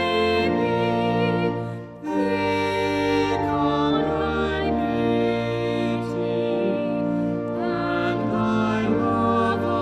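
Music with long held, pitched notes, some with vibrato. It dips briefly about two seconds in.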